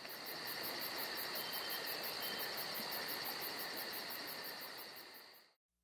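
Insects chirping: a steady high trill with a faster pulsing chirp above it, about five pulses a second, over a soft hiss of outdoor ambience. It fades out near the end.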